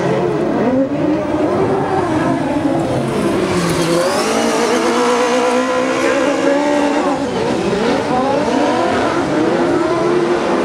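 Several Buggy1600-class autocross buggies racing on dirt, their engines running together and revving up and down over one another with each gear change and corner.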